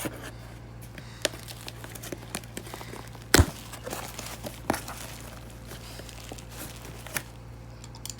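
Cardboard box being opened by hand, with packaging crinkling and tearing in a run of small scattered clicks and crackles. One loud sharp knock comes a little before halfway.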